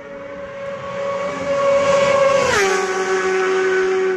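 Racing motorcycle passing close at speed: the engine note grows louder as it approaches, then drops sharply in pitch as it goes by about two and a half seconds in.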